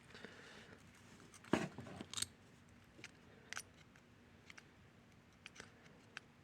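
Small clicks and knocks of hands working a replacement plug end, its wires and a hand screwdriver, with a louder clatter about a second and a half in and another just after two seconds.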